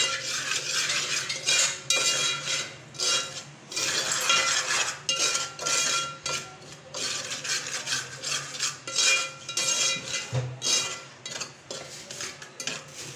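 A perforated steel spoon stirs and scrapes dry semolina around an aluminium pot in quick, irregular strokes. The grains are being dry-roasted, before any ghee is added.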